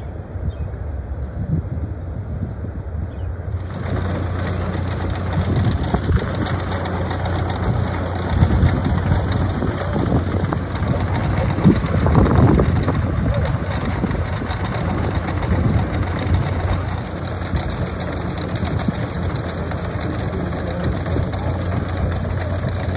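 An engine running steadily with a low hum, swelling louder for a few seconds in the middle.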